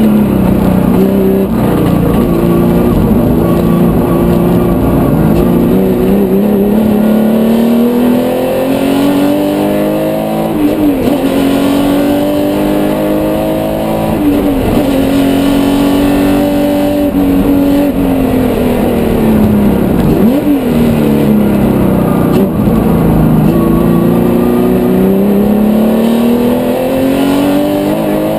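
Porsche 911 race car's 3.8-litre flat-six engine at full throttle, heard from inside the cockpit: its pitch climbs repeatedly as it revs, dropping sharply at shifts and falling off more slowly when the driver lifts for corners.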